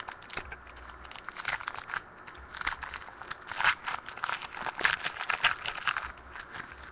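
Plastic foil trading-card pack wrapper crinkling and tearing as it is handled and opened, in a fast, irregular run of crackles.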